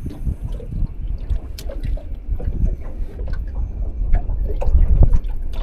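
Small waves lapping and slapping against a boat's hull in irregular little splashes, under heavy wind rumble on the microphone.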